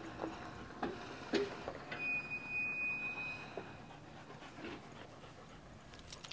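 A dog panting close by, with a few soft knocks of its paws in the first second and a half. A short, steady high-pitched tone sounds about two seconds in.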